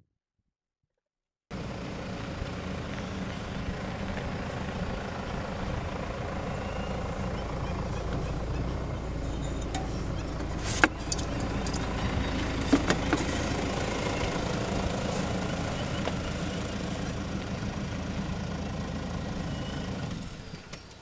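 Vehicle engine idling steadily, starting abruptly about a second and a half in, with a few sharp clicks about halfway through. It drops away near the end.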